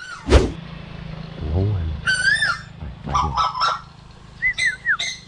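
A bird calling in short, honk-like squawks, several in quick succession from about two seconds in and coming faster near the end. A single sharp snap comes just before them.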